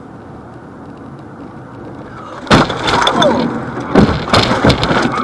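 Vehicle crash: a steady rumble, then about halfway through a sudden loud smash with breaking and crunching, followed by several more sharp impacts.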